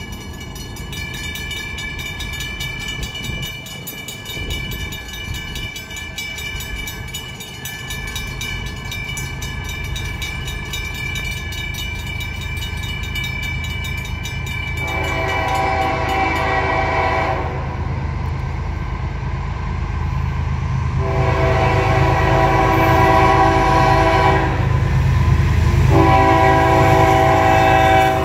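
Grade-crossing bell ringing steadily, then an approaching CSX freight train's lead diesel locomotive sounding its air horn for the crossing: a long blast about halfway through, another a few seconds later, and a third still sounding at the end. Under it the rumble of the locomotives' engines grows louder as the train nears.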